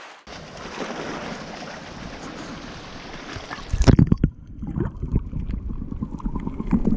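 Wind and sea noise on the shore for the first few seconds. About four seconds in, the sound turns muffled as it comes from underwater: water sloshing and bubbling, with heavy low knocks in shallow surf.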